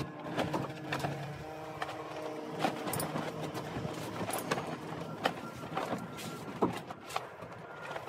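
Handling noise of foil-wrapped ribs being lifted out of a 55-gallon drum smoker: scattered clicks, clanks and foil rustling.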